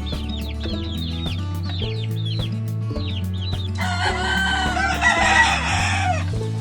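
Chickens: high, short peeps repeating several times a second, then a rooster crows once about four seconds in, a long call that drops away at its end. A music track with a steady bass line runs underneath.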